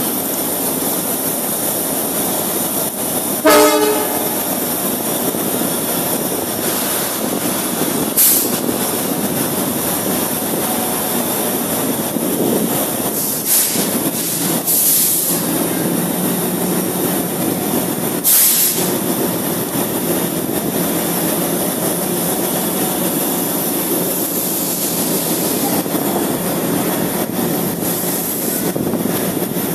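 Coaches of an electric-hauled Indian Railways express train passing along the platform: a continuous rumble and rattle of wheels on the rails. A short horn blast sounds about three and a half seconds in, and several sharp clanks stand out in the middle stretch.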